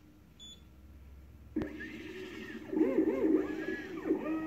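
Computerized key-cutting machine starting its cycle. A click comes about a second and a half in, then its stepper motors whine in quick rising and falling sweeps as the carriage moves through its self-calibration before cutting.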